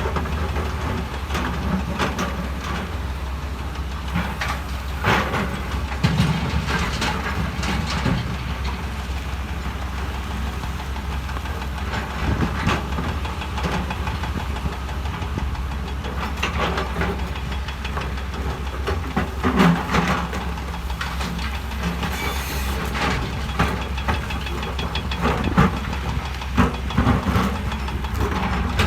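Heavy diesel earthmoving machinery running with a deep, steady engine rumble, overlaid by irregular clanks and knocks of metal and moving stone.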